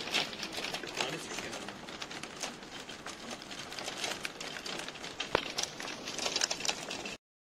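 Dense dry crackling and rustling, full of small irregular clicks, that cuts off abruptly about seven seconds in.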